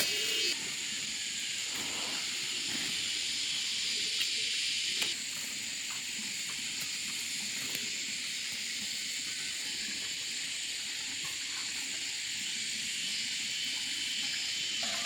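A steady high-pitched hiss with a faint steady high tone in it, and a few soft knocks in the first few seconds.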